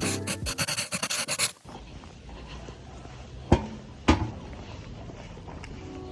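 Rapid scraping or rubbing strokes for about a second and a half, then stopping; after that a quiet room with two short knocks about half a second apart.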